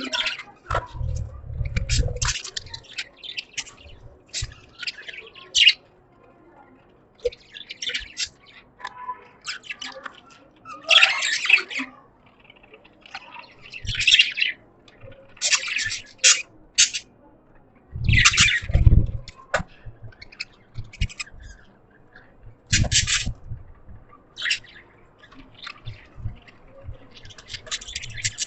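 Budgerigars chirping and chattering in quick, irregular bursts of short calls and squawks, with a few low thumps in between.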